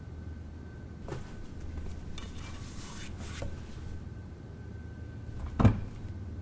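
Soft rustling and rubbing as a felt mat is handled and laid onto a turntable platter, then a single sharp knock about five and a half seconds in, the loudest sound.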